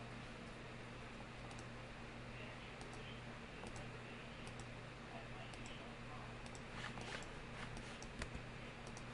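Scattered computer mouse clicks, a few at a time and more often in the last few seconds, over a steady low hum and hiss.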